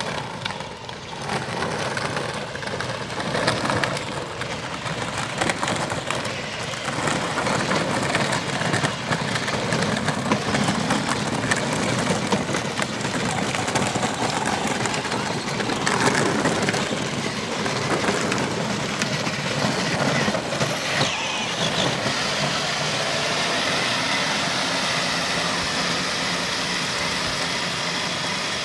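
Battery-powered ride-on toy vehicles running over a dirt track: a toy Harley-Davidson motorcycle and a kids' ATV, with a steadier hum in the last several seconds as the motorcycle sits stuck on a dirt hump.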